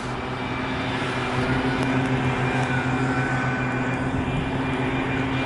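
Steady street traffic noise with a constant engine hum.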